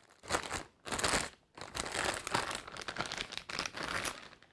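Clear plastic packaging bag crinkling and rustling as an action figure is worked out of it: two short bursts, then a longer spell of crinkling that stops shortly before the end.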